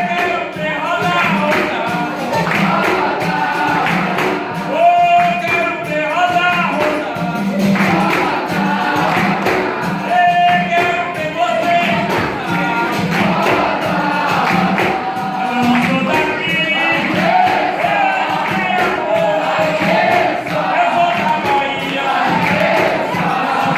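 Capoeira roda music: group singing in chorus over a steady beat of hand percussion such as a pandeiro.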